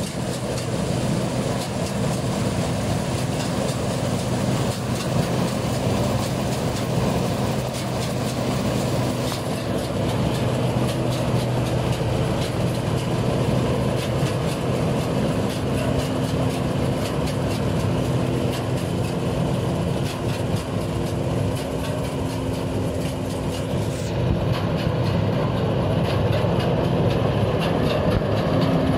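Sperry New Holland 8070 combine harvester running steadily while harvesting rice: a constant engine drone with the dense rattling clatter of the turning header reel, auger and threshing works.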